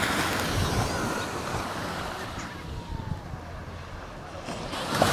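Small Caribbean sea waves washing onto a beach, with wind on the microphone. The wash is louder at first, eases off in the middle and builds again near the end.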